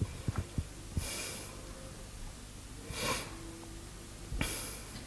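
A man breathing audibly through the nose between phrases: three separate sniffing breaths, about a second and a half to two seconds apart, with a few faint clicks just before the first.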